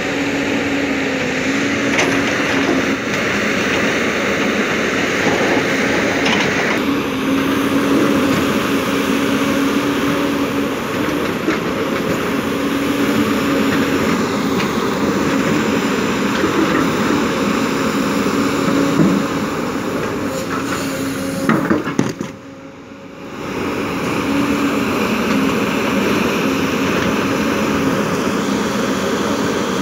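Heavy diesel engines running steadily: a tipper truck, then a JCB crawler excavator working loose rock, with a few short knocks over the engine hum. The sound changes about a quarter of the way in and drops briefly about three quarters of the way through.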